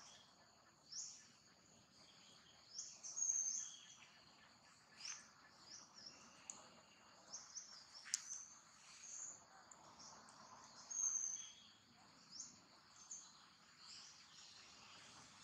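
Birds chirping: many short, high notes and quick sweeping calls, about one every second, over a faint outdoor background.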